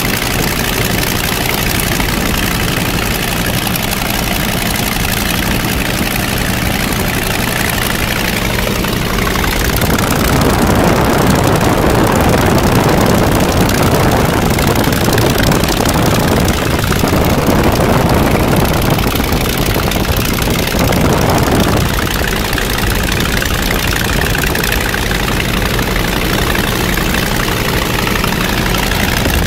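Polikarpov Po-2 biplane's five-cylinder Shvetsov M-11 radial engine running steadily in flight, heard from the open cockpit together with slipstream wind rushing over the microphone. About ten seconds in the wind rush grows louder for some twelve seconds, then falls back.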